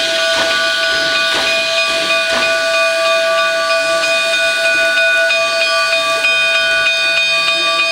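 Narrow-gauge steam locomotive's whistle blowing one long, steady blast, several tones sounding together as a chord, over a hiss of steam. During the first two or three seconds the hiss pulses about once a second.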